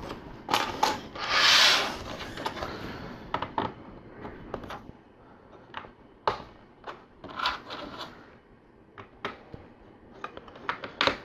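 Plastic LEGO bricks clicking and clattering as pieces are handled and pressed together, in scattered single clicks, with a short rustle about a second and a half in.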